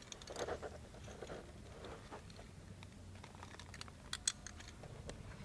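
Faint soft scraping and leaf rustling as a steel ladle scoops egg fry onto leaf-lined plates, with a few sharp clicks about four seconds in.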